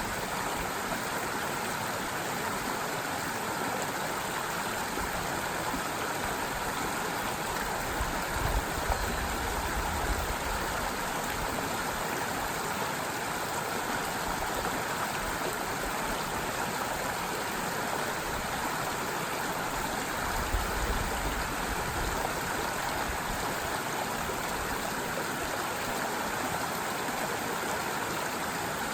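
Forest stream flowing in a steady, even babble of running water, with two brief low rumbles about nine and twenty-one seconds in.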